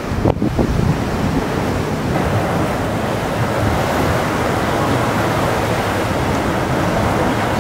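Steady rushing noise of wind buffeting the microphone.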